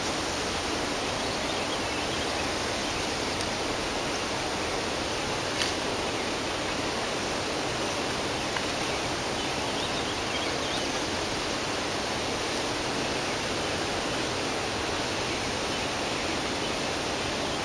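Steady rush of flowing water, an even hiss that does not change, with one brief click about five and a half seconds in.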